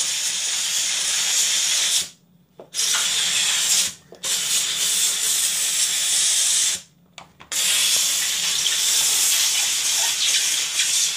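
Kärcher SC4 steam cleaner's nozzle jetting steam with a loud steady hiss, stopping abruptly and starting again three times.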